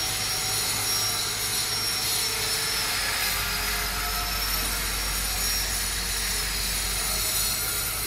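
Steady machine noise from construction work, even and unbroken, with a faint high whine and a low hum underneath.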